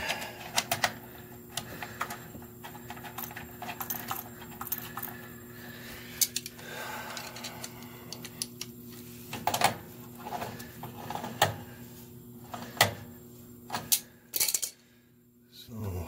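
Scattered short clicks and clinks of small metal parts and tools being handled during reassembly of a gas water heater's burner and control, over a steady low hum.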